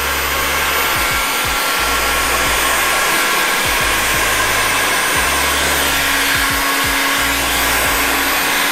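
Electric heat gun blowing steadily: an even fan hiss with a steady motor hum. It is heating the edges of paint protection film to seal them down.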